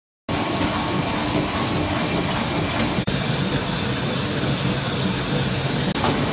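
Sheetfed offset printing press running at production speed: a steady, dense mechanical din that starts abruptly a moment in.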